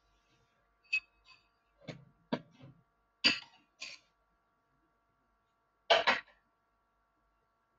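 A person coughing and clearing their throat in a few short bursts, the loudest a double cough about six seconds in.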